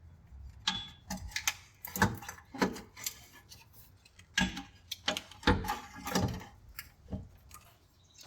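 A string of irregular clicks and knocks, about a dozen in all, from things being handled and bumped while working under the vehicle.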